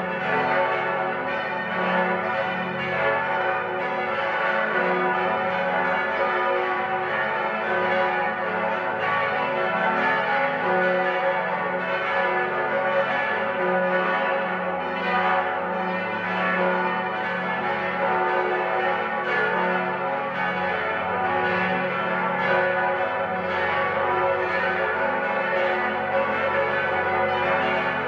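Eight large church bells of St. Ottilien Archabbey, tuned F♯, A, C♯, E, F♯, G♯, A and B, ringing together in full peal. Their strikes overlap into a dense, steady wash of bell tones. The ringing is the call to the conventual Mass on a high feast.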